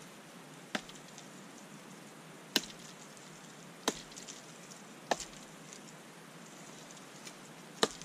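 Large knife blade chopping into a thin wooden pole: five sharp, separate strikes, irregularly spaced a second or two apart.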